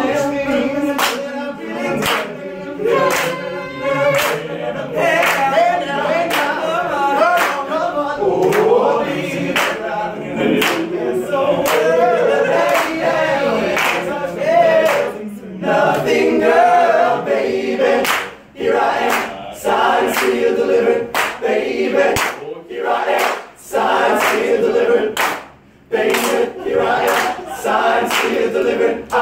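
Male a cappella group singing a song in close harmony, with a sharp percussive beat keeping time about once or twice a second. The singing breaks off briefly a few times in the second half.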